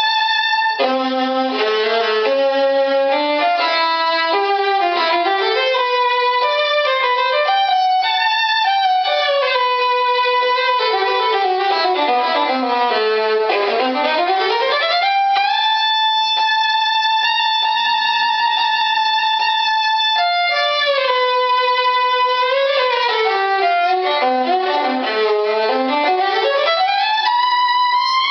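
Full-size violin played solo: quick passages, a scale running down to the low G string, a long held high note, then another run down and back up.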